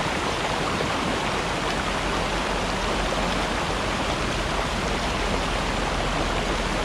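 Small mountain stream rushing over and around boulders in a shallow riffle: a steady, even rush of water.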